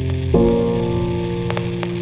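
Ambient drone music of sustained low chords: one held chord cuts over to another about a third of a second in. A few faint scattered clicks sound over it.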